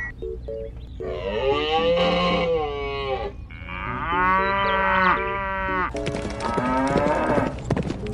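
Cattle mooing: three long moos one after another, each rising and then falling in pitch.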